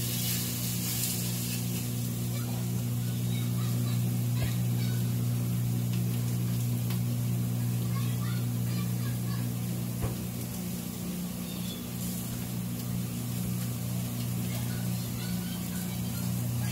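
A steady low mechanical hum from a running kitchen appliance, with a faint hiss of burgers frying on a griddle. A few soft taps and pats come as raw ground pork is pressed into a patty by hand.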